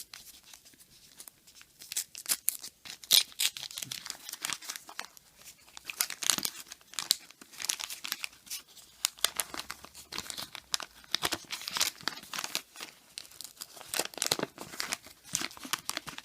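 The paper wrapper of a trading-card pack being torn open and crinkled: a long run of short crackles and rustles.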